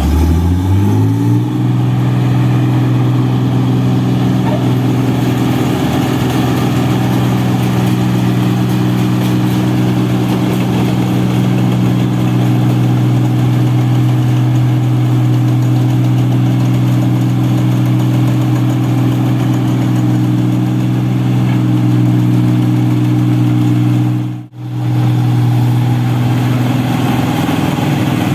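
An engine revs up over the first second or so, then runs loud and steady at constant speed. Its sound cuts out for a moment a few seconds before the end.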